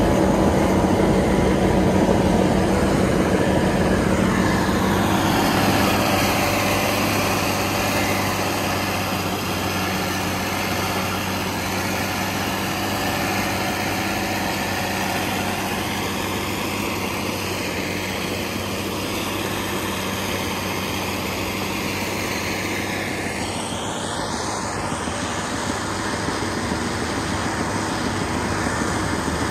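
Fiatallis FA 200 tractor's diesel engine running steadily under load while pulling a disc harrow through stubble. A higher whine over it sinks a few seconds in and climbs again near the end.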